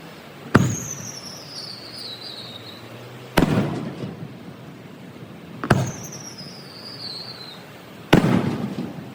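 Aerial fireworks shells bursting: four sharp bangs a couple of seconds apart, each trailing off in a rumbling echo, with a falling whistle after the first and the third. Played back at double speed.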